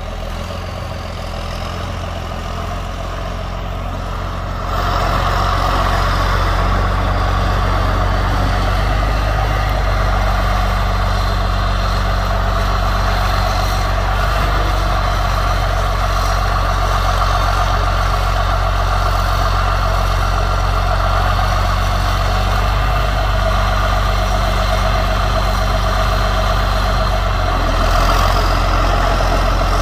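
John Deere 4440 tractor's turbocharged six-cylinder diesel running as the tractor drives up with its front loader. The engine gets louder about five seconds in and then holds steady.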